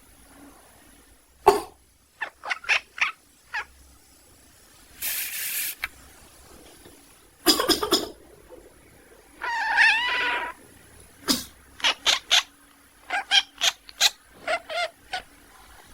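A person coughing a few times while a sleeping cat answers with short, duck-like quacking calls, several in quick runs, plus one longer wavering call about ten seconds in.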